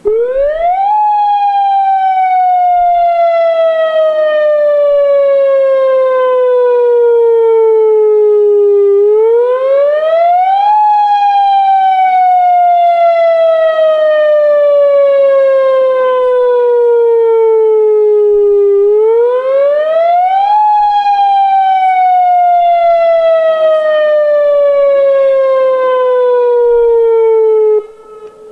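Electronic dam warning siren sounding through loudspeakers during a test: a single wailing tone that sweeps up quickly, then slides slowly back down, three times over, about ten seconds per cycle, and cuts off abruptly near the end. It is very loud.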